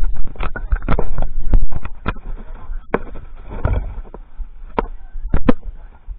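Irregular knocks and clacks from a set of marching tenor drums (quads) being handled and bumped, with low wind rumble on the drum-mounted microphone.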